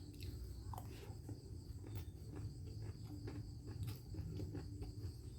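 Steady high-pitched insect chirring, with scattered light clicks and taps from eating.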